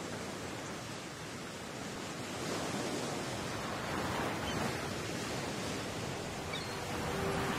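Ocean surf breaking and washing up a beach: a steady rushing wash that swells as the waves come in. Faint music tones enter near the end.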